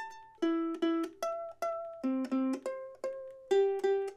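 Loog soprano ukulele played one string at a time for an intonation check: each open string is plucked twice, then plucked twice at the 12th fret an octave higher, working across the strings in turn. The octaves sound in tune, a sign of a well set-up instrument.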